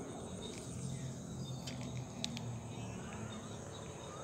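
Steady high-pitched chorus of crickets and other insects, with a few sharp clicks about two seconds in.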